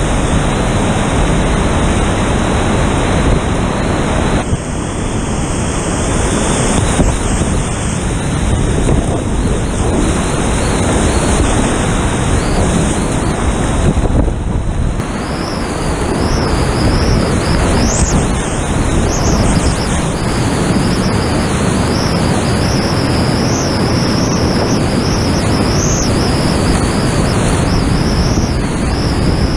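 Whitewater rapids rushing loudly and steadily around a kayak, heard close up, with water and wind buffeting the camera microphone.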